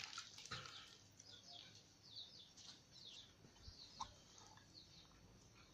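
Near silence with faint, high bird chirps in the background: many short falling notes.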